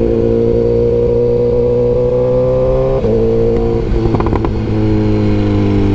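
BMW S1000R's inline-four engine running steadily, its pitch easing slowly down, with a brief dip and change in note about three seconds in.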